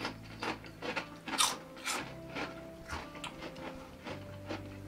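Crunching of crisp quinoa and legume chips being chewed: a run of irregular short crackles.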